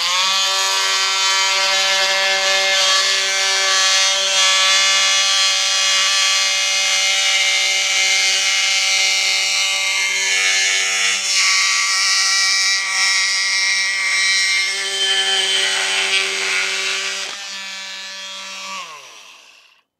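Milwaukee M18 BMT cordless oscillating multi-tool running at full speed with a titanium-coated bi-metal blade, plunge-cutting into the edge of a dry wooden block with a steady high buzzing whine. The cut is hot enough to scorch the wood slightly. It eases off near the end and winds down to a stop.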